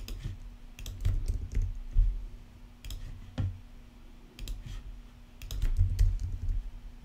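Typing on a computer keyboard: irregular, scattered keystrokes and clicks, some with a dull thud beneath.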